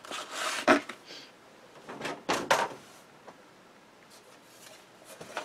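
Paper and cardstock being handled and slid across a cutting mat: short rustles and scrapes in two brief spells, one at the start and one about two seconds in.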